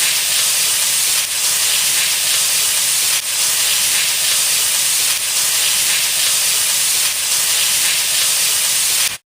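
Food frying in hot oil: a loud, steady, dense sizzle with small dips about every two seconds, cutting off abruptly near the end.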